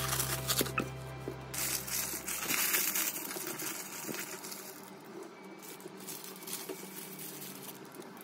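Soft background music fading out over the first few seconds, then parchment paper crinkling and rustling in irregular crackles as it is wrapped and twisted around a roll.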